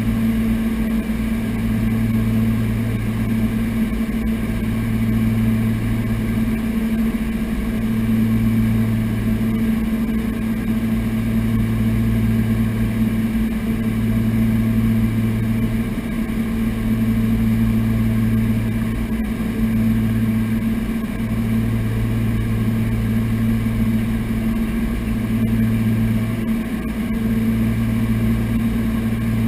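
Twin piston engines and propellers of a Piper Navajo in cruise flight, heard inside the cockpit as a loud, steady drone with a slow regular pulsing about every one and a half to two seconds.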